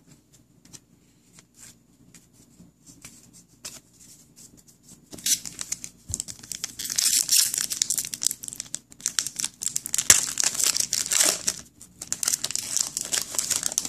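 Foil trading-card pack wrapper being torn open and crinkled in the hands. A few faint handling clicks come first, then from about five seconds in comes a long run of crackling and tearing, with a brief pause near the end.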